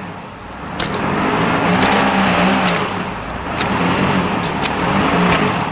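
Car engine running with an uneven, wavering revving, with scattered sharp clicks over it.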